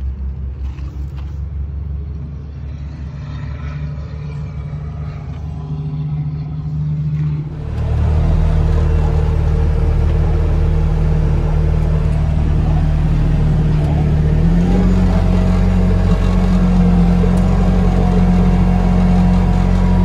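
Skid steer's diesel engine running with an even, pulsing rumble. About seven and a half seconds in it cuts to a louder, steadier engine with a hiss of rain over it, and the engine pitch steps up near the middle.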